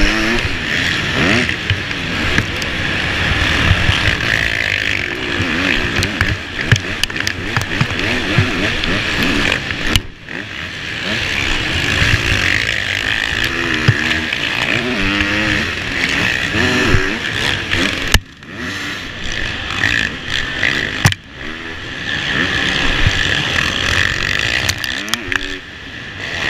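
Four-stroke supercross motorcycle engine, heard close up from on the bike, revving up and down over and over as the rider works the throttle around the track. The throttle is cut briefly about ten, eighteen and twenty-one seconds in.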